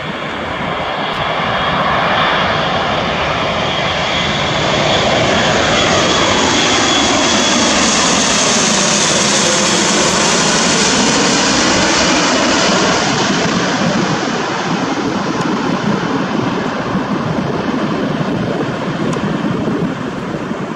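Airbus A400M Atlas's four TP400-D6 turboprop engines, with eight-bladed propellers, running at approach power as the aircraft flies low overhead with gear down. The sound builds, is loudest around the middle with a sweeping swoosh as it passes overhead, and then eases slightly.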